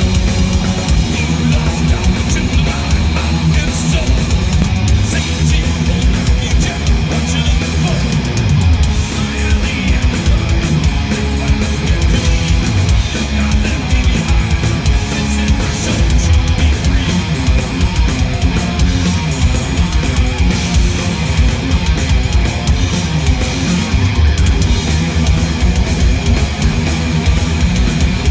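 Loud live rock music from a band's sound check, with a drum kit and electric guitar playing without a break.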